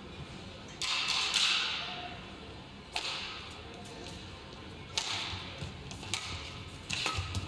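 Badminton racket strings striking a shuttlecock: sharp cracks about two seconds apart, each ringing out in the large hall, then quicker clicks near the end as a rally gets going.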